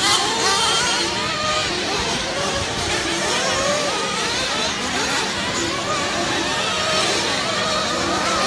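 Several 1/8-scale nitro RC race cars running laps on a dirt track, their small engines whining and rising and falling in pitch as they speed up and slow down, with a steady low hum underneath.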